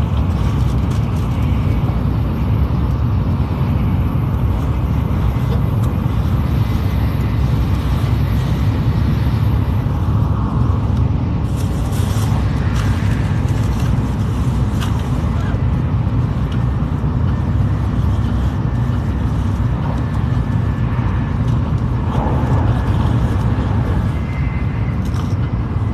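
Shinkansen bullet train running at speed, heard from inside the passenger car: a steady low rumble of wheels and air, with a brief burst of higher hiss about halfway through.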